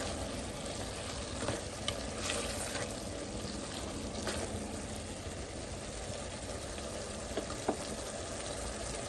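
Aloo matar keema sizzling in oil in a kadai as it is stirred, a steady frying hiss with a few light clicks of the spoon against the pan.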